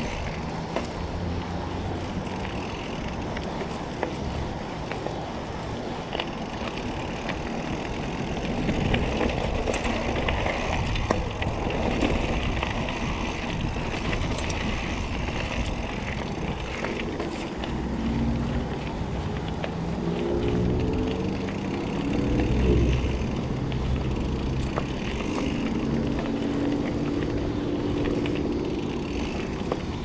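Diamondback Atroz 3 mountain bike rolling along a dirt singletrack: steady tyre noise on the dirt with chain and frame rattle, and wind on the action camera's microphone. A low humming tone comes and goes in the second half.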